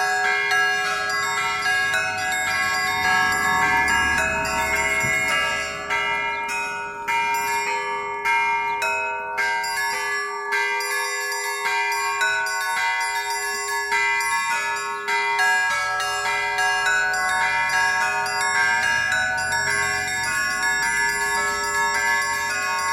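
Russian Orthodox church bells rung by hand by one bell-ringer: small bells struck in quick rhythmic patterns over the steady, ringing tone of a larger bell, in a continuous peal.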